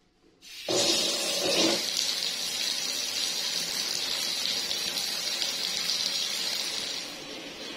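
Water from a wall tap starts suddenly and pours steadily into a plastic tub, heavier in its first second and easing a little near the end.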